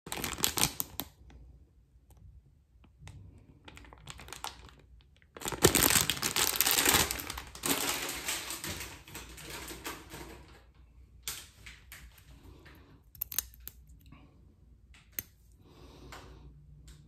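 A two-blade Schick disposable razor scraping through lathered stubble in short, irregular strokes, with a louder stretch of continuous scraping noise lasting several seconds in the middle.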